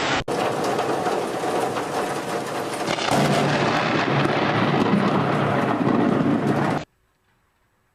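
Thunderstorm: steady rain hiss, then a close thunderclap about three seconds in that rumbles on for several seconds. The sound then cuts off abruptly near the end.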